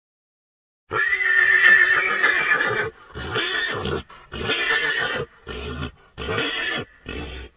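An animal calling: one long pitched call of about two seconds, then five shorter calls in quick succession.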